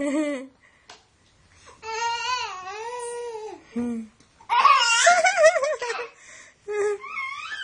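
Baby squealing with high-pitched laughter in several short bursts, the loudest about halfway through.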